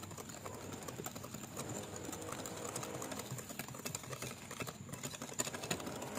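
Wire whisk beating cake batter by hand in a glass bowl, a fast, steady run of light clicks and scrapes as the wires strike the bowl, while flour and baking powder are mixed into the wet batter.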